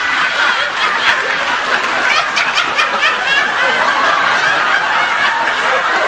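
Women laughing helplessly and continuously: cast members corpsing, a fit of the giggles that breaks up a take.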